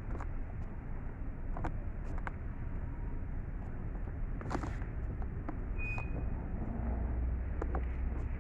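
Steady road-traffic rumble, with a vehicle going by close near the end, and scattered sharp clicks over it.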